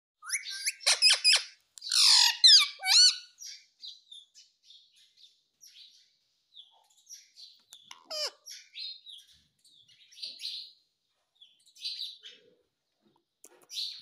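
Indian ringneck parrot calling: a burst of loud, sharp calls with sliding pitch in the first few seconds, then softer scattered chattering, with one falling call about eight seconds in.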